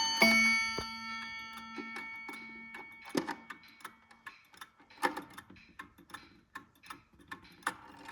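Seth Thomas 89L clock movement sounding its bim-bam strike: a two-note hammer stroke on the chime rods at the start that rings and fades over about three seconds. Then the movement ticks on with sharp, uneven clicks.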